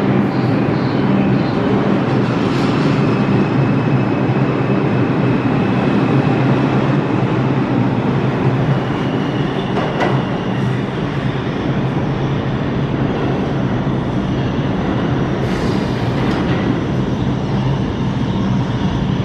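New York City subway train of R142 cars running through an underground station: a loud, steady rumble of wheels on rail and traction motors with a low hum. A thin, higher tone comes in around the middle.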